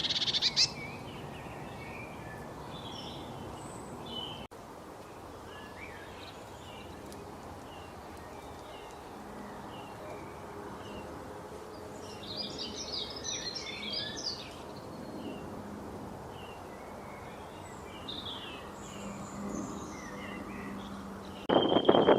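Several small birds chirping and calling in short, high notes over a steady background hiss, with a busier flurry of chirps about twelve to fourteen seconds in. A louder burst of sound comes near the end.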